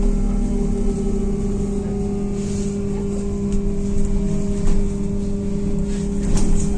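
Cabin sound of a MAZ-203T70 trolleybus under way: a steady electrical hum with thin whining tones from the electric traction drive that slowly slide in pitch. A few sharp knocks and rattles come late on.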